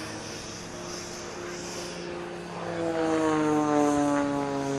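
Propeller-driven aerobatic monoplane, an Extra 300, with its piston engine and propeller droning overhead. About two and a half seconds in, the sound grows louder and its pitch then slides slowly down as the plane pulls up into a steep climb.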